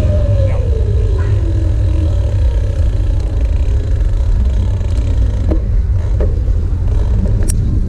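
Wind buffeting the microphone of an action camera on a moving bicycle: a loud, steady low rumble. A short falling tone comes in the first two seconds, and a few faint clicks come in the second half.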